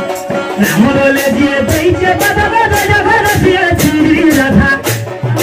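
Live Odia folk music for a Danda Nacha dance: a voice singing over a shoulder-slung barrel drum (dhol) beaten in a steady rhythm.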